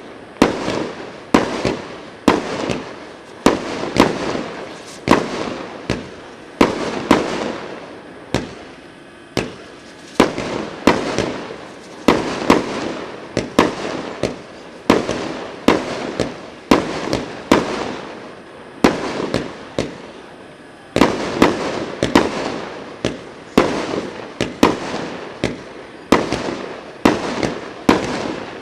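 Pyrotrade 'Diana' firework cake firing a continuous volley of shots: a rapid series of sharp bangs, roughly one to two a second, each fading quickly, with a couple of brief lulls between them.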